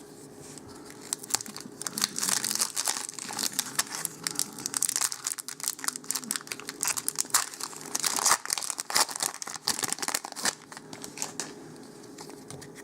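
Foil wrapper of a Magic: The Gathering Dark Ascension booster pack crinkling and tearing as it is opened by hand, with many quick, irregular crackles.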